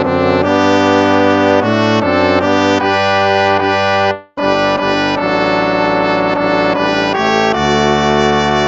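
Instrumental hymn music with a brass-like sound, slow held chords changing every second or so, broken by a short pause about four seconds in.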